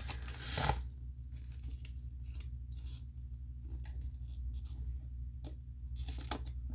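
Small plastic toy pieces and packaging being handled: a short rustle about half a second in, then scattered light clicks and a soft rustle near the end, over a steady low hum.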